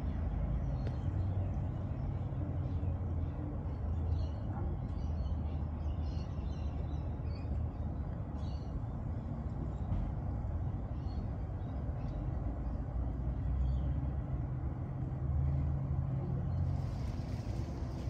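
Outdoor garden ambience: a steady low rumble with a few faint, short high chirps scattered through it.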